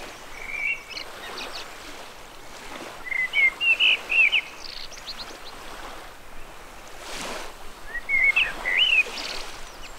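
A songbird singing short chirping phrases three times, about a second in, around three to four seconds in, and near the end, over a steady outdoor background hiss.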